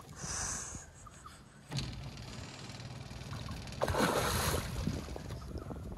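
A hooked black bass thrashing at the surface beside the boat: a short splash at the start and a loud splash about four seconds in, with water sloshing around the landing net and a steady low rumble underneath.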